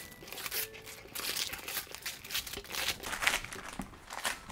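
Paper and cardboard packaging rustling and crinkling in a series of short scrapes as a gift box is torn open and the boxed item inside is pulled out.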